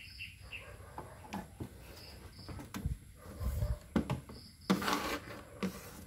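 Handling noise of a TV power-supply board on a wooden workbench: scattered clicks and knocks, with a short scraping rustle about five seconds in. A bird chirps in short notes in the background.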